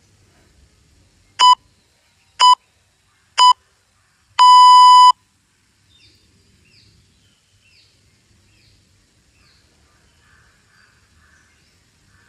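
Workout interval timer counting down: three short electronic beeps about a second apart, then one longer beep of the same pitch, marking the end of the rest period and the start of the next exercise round.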